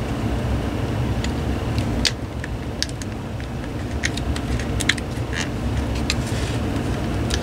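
Scattered light clicks and taps of plastic fan-housing parts being handled and fitted back together, over a steady low background rumble.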